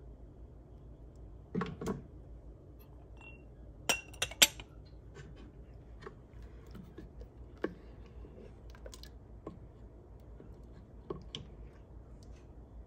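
Kitchen clatter from jam canning: a stainless steel canning funnel and glass jars clinking, with a ladle knocking against them. There are a couple of dull knocks about two seconds in, three sharp clinks a little after four seconds, and single clicks later on.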